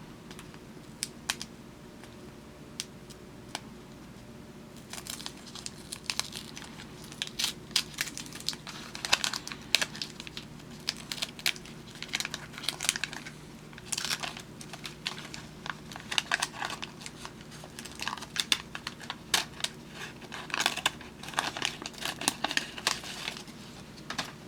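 Wax paper wrapper of a 1975 Topps baseball card pack crinkling and tearing as it is handled and opened: a few light clicks at first, then dense crinkling for most of the time, over a faint steady low hum.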